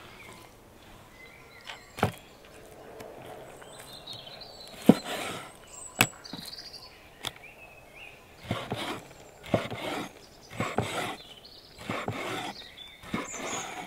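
Cooking utensil work: a few sharp knocks, then a run of scraping strokes about once a second from about two-thirds of the way in. Birds chirp briefly now and then.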